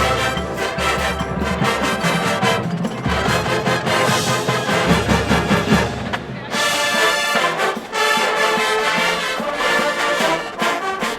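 Marching band playing a brass-heavy piece, with trombones and trumpets over a strong low end.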